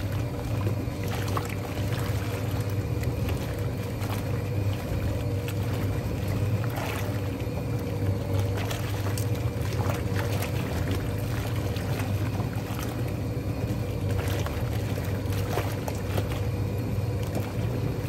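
Vintage Hoovermatic twin tub washing machine running its wash cycle: the motor hums steadily while the pulsator churns and sloshes the soapy water in the tub.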